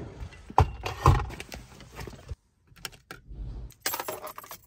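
Handling noise of someone getting into a car: two heavy thumps in the first second and a half, then a jingle of car keys near the end.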